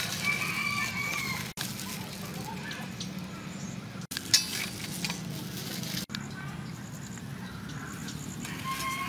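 Rooster crowing: one held call about a second long near the start, and another near the end, over a steady low hum. A sharp click comes a little past the middle.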